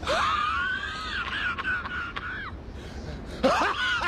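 A man's high, wavering wail that glides up and down, then a louder upward whoop about three and a half seconds in.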